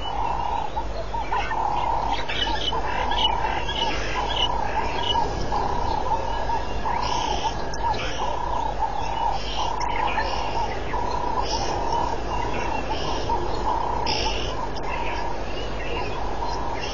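Outdoor wildlife calls: a steady, pulsing chorus around one pitch with scattered higher bird-like chirps over it.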